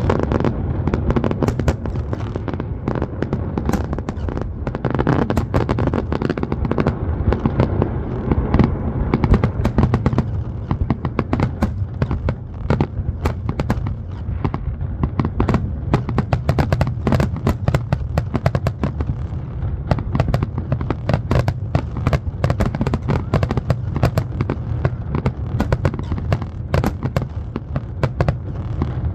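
Fireworks exploding in a dense, continuous barrage: many sharp cracks and booms a second over a steady low rumble, without a break.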